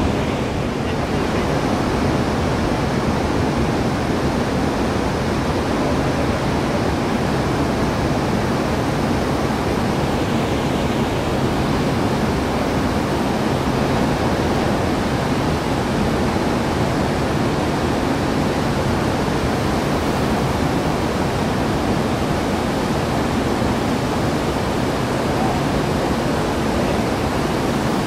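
Steady rushing noise of big ocean surf breaking, even and unbroken throughout.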